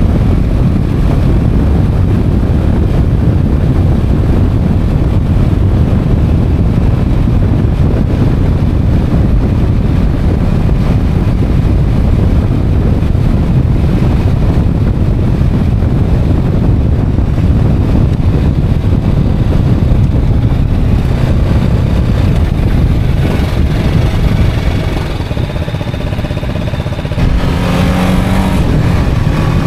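Motorcycle riding at road speed, with loud wind rush over the microphone and the engine running underneath. Near the end the noise eases for a few seconds, then the engine revs up with a rising pitch as the bike accelerates.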